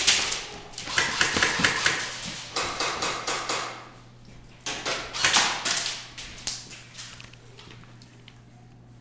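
Airsoft electric guns (AEGs) firing several full-auto bursts of rapid clicks, about eight shots a second, stopping after about six seconds.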